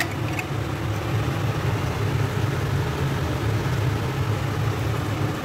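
Steady low mechanical hum with a fan-like rush of air noise.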